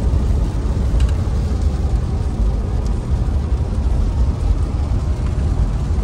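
Car on the move: a loud, steady low rumble of road and wind noise.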